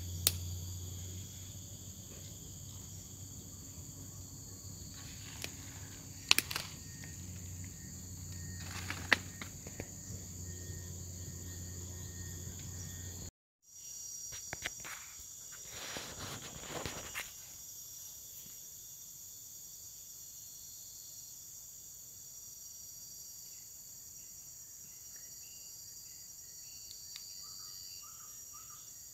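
A steady chorus of insects trilling at several high pitches, with a few sharp clicks and knocks. About halfway through, the sound cuts out briefly, and afterwards the background is quieter with the low hum gone.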